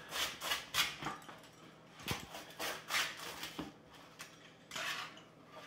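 Rolling pizza cutter wheel crunching through the crisp crust of a grilled pizza, a series of crunching strokes with a sharp click about two seconds in.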